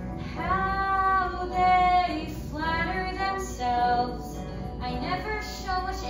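A young stage cast singing a musical-theatre song with accompaniment, with long held notes.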